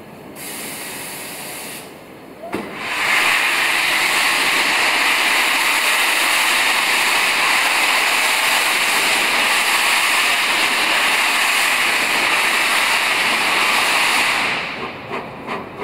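Peppercorn A1 Pacific steam locomotive 60163 Tornado venting steam at its cylinders as it starts away: a loud, steady hiss that sets in about three seconds in after a brief softer hiss, and fades near the end.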